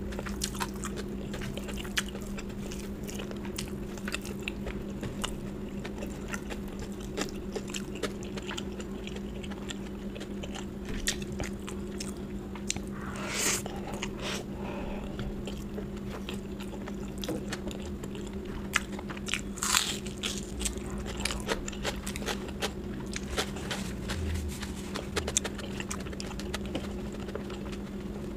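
A person biting and chewing food close to the microphone, with many small wet mouth clicks and two louder brief sounds about 13 and 20 seconds in. A steady low hum runs underneath.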